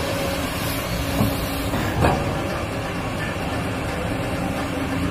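JCB tracked excavator's diesel engine and hydraulics running steadily as the boom lowers the bucket into the earth, with two sharp knocks about one and two seconds in.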